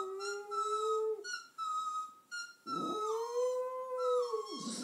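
Small terrier howling twice: a howl of about a second, then after a short pause a longer one of about two seconds, each held at a fairly steady pitch. The dog is howling in response to a singer on the television.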